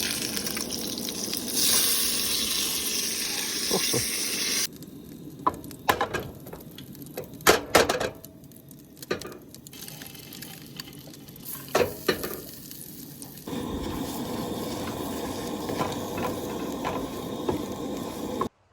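Food sizzling in a frying pan. About four and a half seconds in the sizzling stops abruptly, and a stretch of sharp clicks and taps of a utensil against the pan follows. The sizzling starts again at about thirteen and a half seconds and cuts off just before the end.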